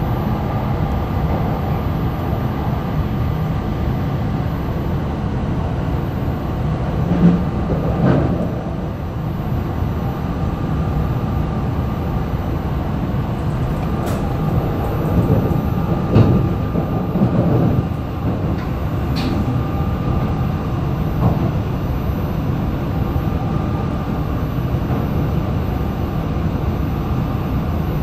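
Steady low running rumble of a Joetsu Shinkansen E4-series "Max Toki" bullet train, heard inside the passenger car, with a few brief louder thumps about a quarter and again just over halfway through.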